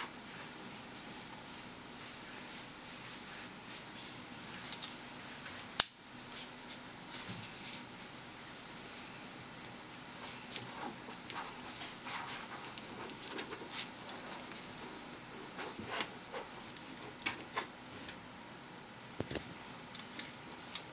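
Handling of a polyester-and-neoprene dog collar and leash: webbing rubbing and scattered light clicks from its plastic side-release buckle and metal clip, with one loud sharp click about six seconds in.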